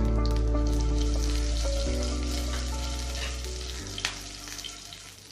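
Curry leaves sizzling and crackling in the hot oil of a tempering of mustard seeds and urad dal, gradually dying down as the pan cools with the stove switched off.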